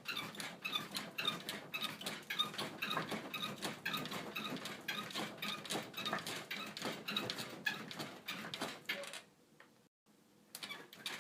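Bed creaking in a steady rhythm, a quick run of short squeaks and clicks. It stops briefly about nine seconds in, then starts again.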